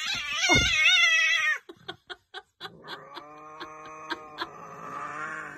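Angry domestic cat yowling, a loud wavering cry for about a second and a half, then after a few soft clicks a long low steady growl: a cat squaring off with another cat in a spat.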